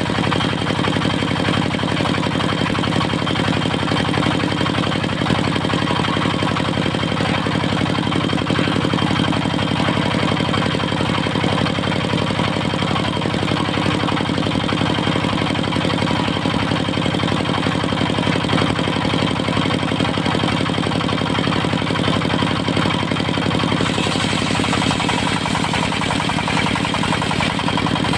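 Diesel engine of a mobile circular sawmill running steadily with an even, rapid beat. Its tone brightens and shifts a few seconds before the end, a change in load or speed.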